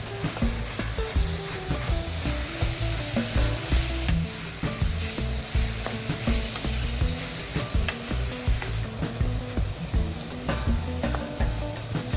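Eggplant and meat sizzling in a frying pan over high flame as they are stirred, with occasional sharp clicks of the utensil against the pan.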